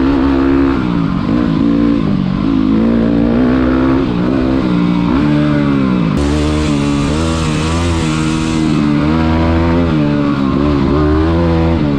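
Motorcycle engine under way, its pitch climbing through the revs and dropping back again and again as the gears change. A burst of rushing noise comes in about halfway through and lasts a few seconds.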